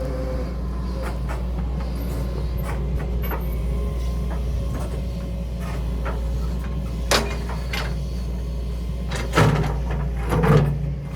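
Excavator's diesel engine running steadily, with a few sharp knocks as rocks are handled and set down: one about seven seconds in and a couple more near the end.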